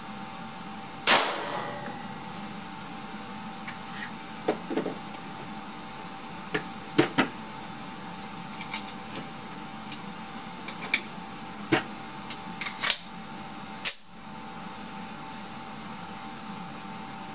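A single shot from a CZ75 SP01 Shadow pistol in 9x21 mm about a second in, with a short ringing tail. It is followed by a scatter of small clicks and knocks of handling as cartridges are loaded and the pistol is readied, with a sharper click near the end, over a steady hum.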